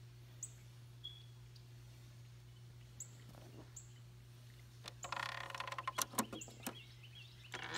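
Plastic CD lid of a Sony CFD-S38 boombox being pushed shut by hand: a run of plastic clicks and rattles about five seconds in, and a louder clatter near the end. Small birds chirp briefly now and then, over a steady low hum.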